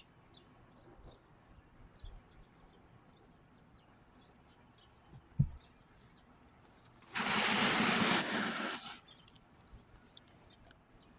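A flock of American robins calling with faint, scattered chirps. About five and a half seconds in there is a single sharp knock, and about seven seconds in a loud two-second rush of noise starts and then cuts off.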